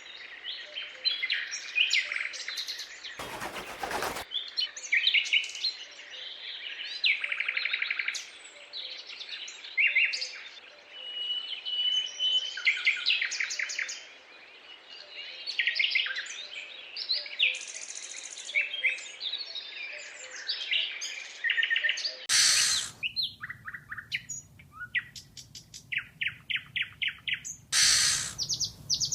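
Many wild birds chirping, trilling and calling over one another in a dense chorus. About 22 s in, the background changes, a low rumble appears beneath, and one bird repeats a rapid series of short chirps. Brief loud noisy bursts come about 3 s in and twice near the end.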